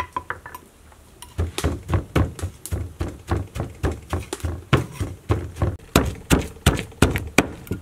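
Wooden pestle pounding a seasoned paste in a large mortar, dull thuds about three a second. A few light spoon clicks come first, as seasoning is added, before the pounding starts.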